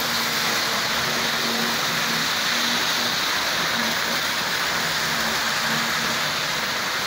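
Tri-ang OO-gauge model trains running on the track: a steady hissing running noise of wheels on rails and small electric motors, with a faint hum that comes and goes.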